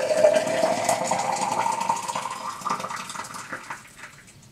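Hot water poured from an electric kettle into a double-walled plastic tea bottle, the pitch of the filling rising steadily as the bottle fills, then tapering off near the end.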